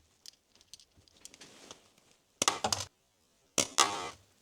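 Light metallic clicks from a small steel screwdriver bit and a cheap keychain multi-tool being handled. Then come two loud clattering knocks, about a second apart, as the bit shoots through the tool and lands on the table.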